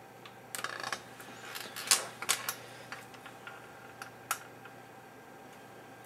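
A handful of sharp clicks and light taps from small hand work on the bench, with a brief scraping rattle about half a second in and the loudest click near two seconds in.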